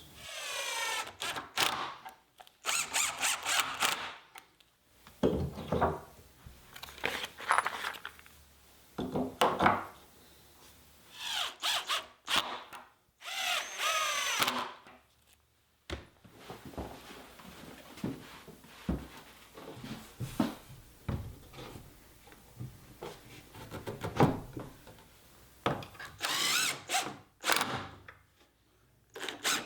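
Power drill with a self-centering bit pre-drilling screw holes for Soss invisible hinges, run in short bursts of a second or two that spin up and die away, with pauses between holes.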